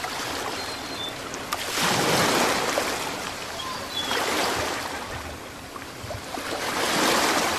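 A rushing, surf-like wash of noise that swells and fades three times, with a few faint, short high chirps.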